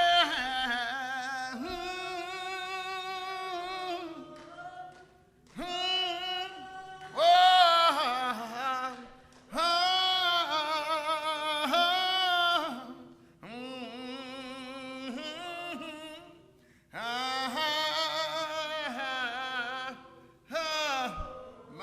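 Unaccompanied hymn singing in slow, drawn-out phrases of a few seconds each, with a wavering vibrato and short breaks between lines.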